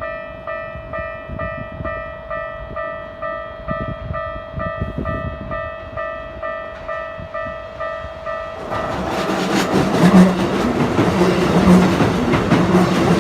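Japanese level-crossing warning bell ringing about twice a second, then a Keikyu train reaches the crossing about nine seconds in and passes loudly with rumble and rattling that drown the bell.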